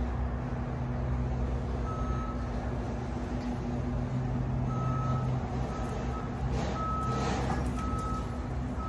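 Forklift reversal alarm beeping, a high single-tone beep once about two seconds in and then about once a second from about five seconds in, over the forklift's steady low running hum as it backs its forks out from under the drywall load.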